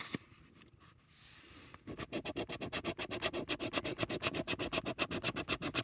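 A scratch-off lottery ticket being scratched in quick, even back-and-forth strokes, several a second, starting about two seconds in after a quiet pause.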